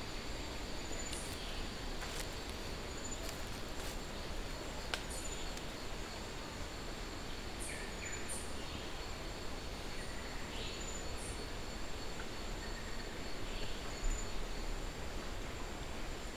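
Outdoor natural ambience: a steady high insect trill, pulsing every second or two, with short high bird chirps scattered through it and a few faint clicks.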